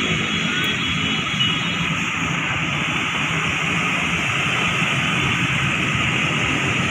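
Road traffic: a vehicle engine running steadily under an even, continuous hiss.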